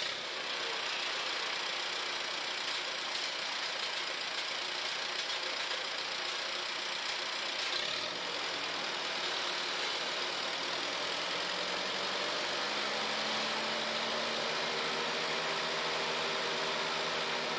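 Allis-Chalmers WD45 tractor's four-cylinder gasoline engine running steadily just after firing up for the first time since its restoration. It runs unevenly at first, then settles into a steadier idle about twelve seconds in.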